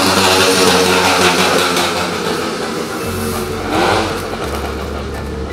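Loud street traffic on a busy avenue: motor vehicles passing and accelerating, with a steady low hum setting in about halfway through.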